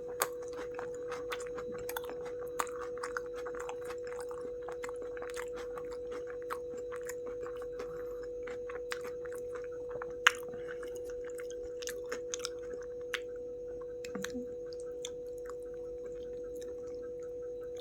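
Close-miked chewing of a burger: irregular small wet clicks and crunches from the mouth, a little louder about ten seconds in, over a steady hum.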